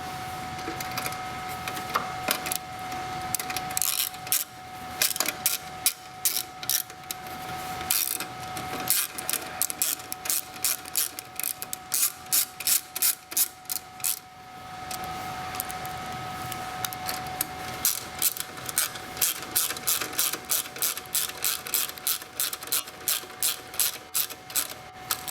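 Ratcheting screwdriver clicking steadily as the two screws holding an IBM 3590 tape drive's power supply are driven back in, in two long runs of about three to four clicks a second with a short pause between them. A faint steady hum runs underneath.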